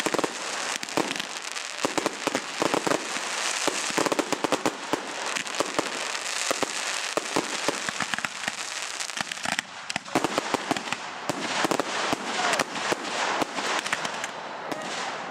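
Firework display: a dense, unbroken run of sharp cracks and pops from many bursting shells, with some louder bangs among them.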